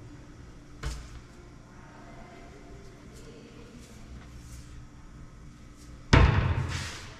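A kitchen cabinet banging shut about six seconds in, the loudest sound, dying away over most of a second, after a lighter knock about a second in.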